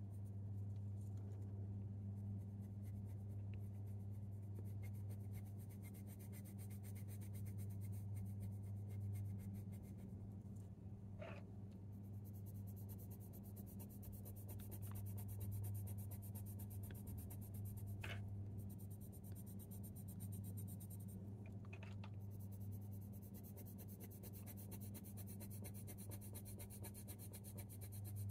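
Coloured pencil shading on hot-press watercolour paper: soft, continuous scratching of light strokes laying down an even base layer, over a steady low hum.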